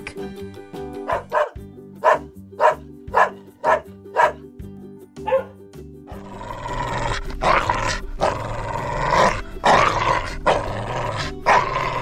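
A dog barking repeatedly, about two barks a second, over light background music. From about six seconds in, the barks give way to a longer, rougher run of dog vocalising.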